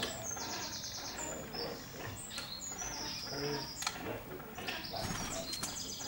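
Songbirds singing: several short, high, rapid trills one after another.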